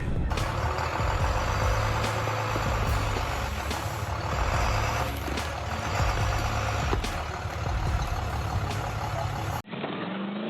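A bus engine running hard and steady under load, with sharp knocks every second or so. Near the end it cuts off abruptly to a duller vehicle sound.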